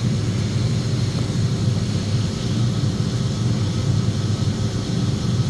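Steady low hum and drone of running boiler-room machinery, with no change through the pre-purge attempt.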